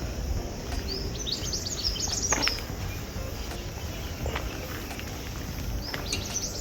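Small birds chirping in quick clusters of short high chirps, about a second in and again near the end, over a steady outdoor background noise.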